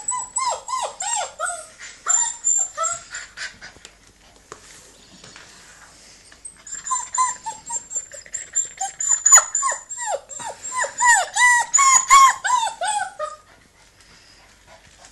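Eight-week-old German Shepherd puppy whining: a quick series of short, high whines, each sliding down in pitch, in two bouts with a pause of a few seconds between them.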